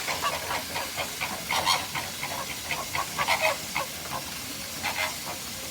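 A flock of flamingos calling: many short, overlapping calls at irregular intervals over a steady hiss.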